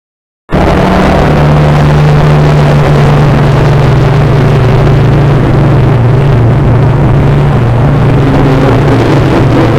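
Digitally made creature-call sound effect: a loud, steady, engine-like drone with a deep humming tone, which cuts in suddenly about half a second in.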